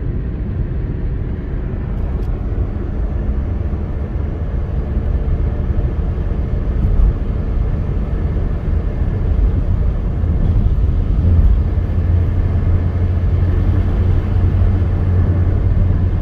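Road and engine noise heard inside a moving car's cabin: a steady low rumble that gets a little louder about ten seconds in.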